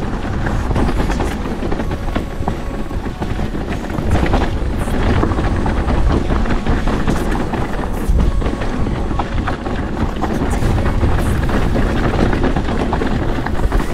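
Enduro mountain bike rattling and clattering over rough trail on a fast descent, with tyres rumbling over the ground and frequent sharp knocks from the bike.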